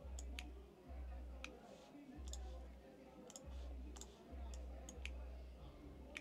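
About ten sharp, irregular computer mouse clicks. Under them, faint music from a party nearby is heard mostly as a low bass beat that comes and goes.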